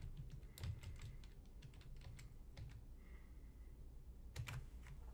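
Faint keystrokes on a computer keyboard, typing a login password, with scattered clicks over the first second or so and a louder pair of clicks near the end.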